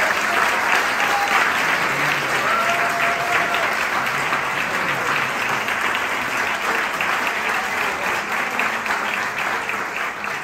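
Audience applauding steadily, the clapping tapering slightly toward the end.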